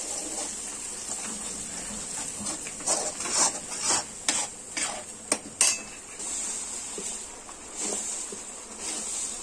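A steel spatula stirs and scrapes a thick ground masala paste as it fries in oil in a kadai, with a steady sizzle throughout. A quick run of metal scrapes and clinks against the pan comes between about three and six seconds in.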